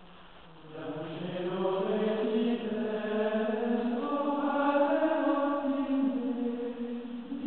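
Vocal chant as background music: a soft held low note, then voices come in about a second in, singing a slow melody in long, held notes.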